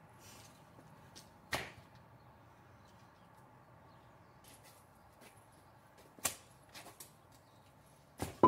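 A few isolated, brief sharp swishes and knocks from longsword test-cutting, one about a second and a half in, a couple more around six to seven seconds, and the loudest right at the end, over faint outdoor background.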